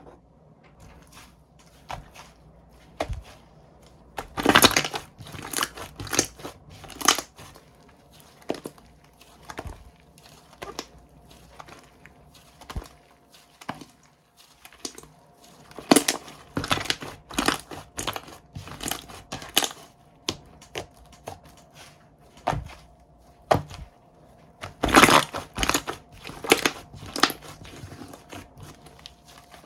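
Slime being kneaded and squeezed by hand, giving irregular crisp clicks and crackling pops, with louder bursts of crackling about four seconds in, midway and near the end.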